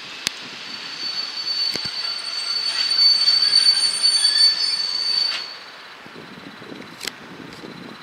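ICE T (DB Class 411) electric train's wheels squealing as it rolls through the curved tracks and points: one steady high squeal that builds for a few seconds and cuts off suddenly after about five seconds. A few sharp clicks stand out near the start and near the end.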